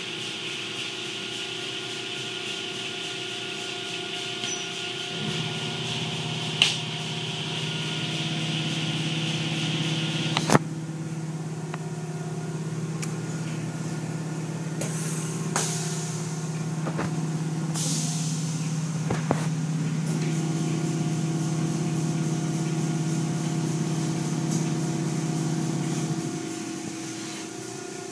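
Automatic car wash machinery heard from inside the car: motors hum steadily while cloth wash strips rub and slap across the hood and windshield, with water spray hissing for the first third. A couple of sharp knocks come at about seven and ten seconds, and a deeper motor hum starts about five seconds in and cuts off near the end.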